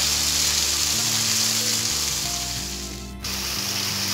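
Blended spice paste with whole spices sizzling in hot oil in a wok as it is stir-fried with a wooden spatula, with background music of sustained low notes. About three seconds in the sizzling fades and cuts off for a moment, then comes back.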